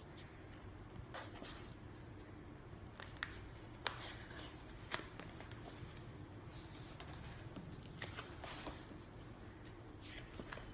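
Thick pages of a wallpaper sample book being turned: paper rustling and flapping, with a few sharp page snaps about three to five seconds in.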